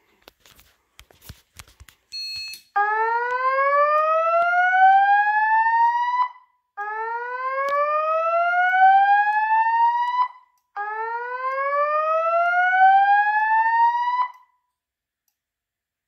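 Simplex fire alarm speaker strobe sounding the slow whoop evacuation tone: three whoops, each rising steadily in pitch over about three and a half seconds, with short gaps between them. A short beep comes just before the first whoop.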